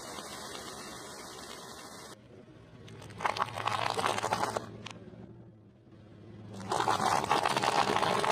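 Gold firework fountain tubes hissing steadily as they spray sparks, cut off abruptly about two seconds in. Then a car tyre rolls over a pile of small hard orange shells, crushing them in two loud bouts of crunching and crackling.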